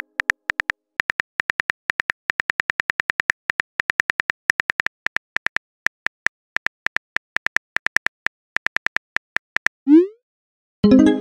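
Rapid clicks of a phone keyboard's typing sound effect as a text message is typed out, then a short rising whoosh as the message is sent. A short musical chime starts just before the end.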